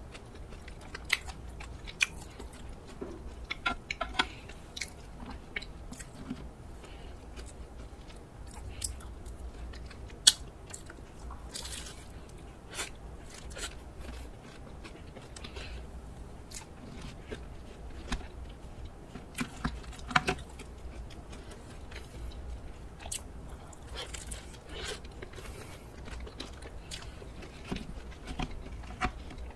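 Close-up chewing and crunching of a Nutella croffle topped with sliced almonds, with irregular crisp cracks from the bites, the sharpest about ten seconds in.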